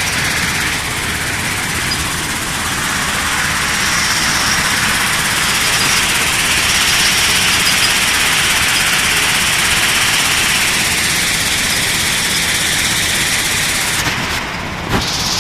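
LZZG double-cyclone sand recycling machine running: a steady, dense mechanical noise. Near the end the sound briefly thins out, then there is a single sharp click.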